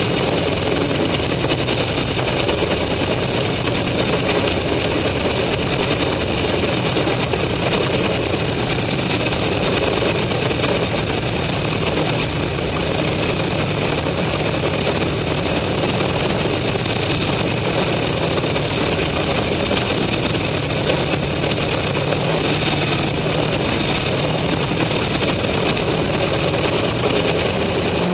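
Sprint car engines idling and running at low speed, a steady rumble heard from inside the open cockpit as the cars sit and roll slowly in line.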